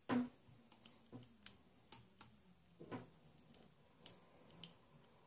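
Small metal clicks and taps of crocodile clips being opened and clipped onto an LED's thin wire legs, with a louder knock right at the start and about nine lighter clicks spaced irregularly after it.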